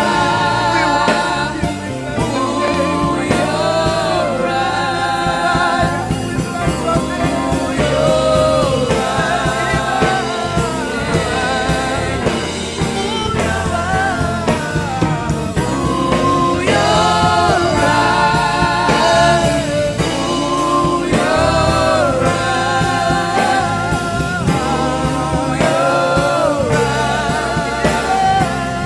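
Live gospel worship music: a male lead singer and a small group of backing singers sing together over a band with drums and keyboard, at a steady beat.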